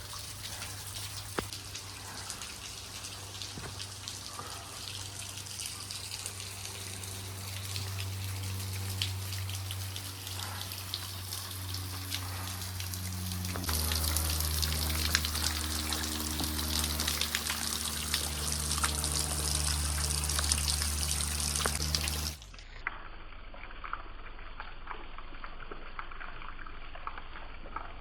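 Water from a small waterfall trickling and splashing onto rock, a steady wash full of fine drips. It grows louder about halfway through, then drops abruptly to a quieter, duller trickle near the end.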